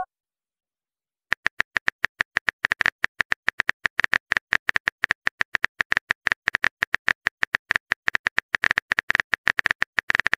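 Smartphone keyboard tap sounds: a fast run of short clicks, about seven or eight a second, as a text message is typed out. They start about a second in.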